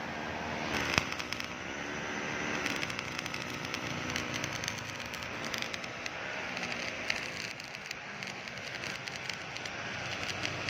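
Electric arc welding: the arc crackles and sizzles steadily, with a sharp click about a second in.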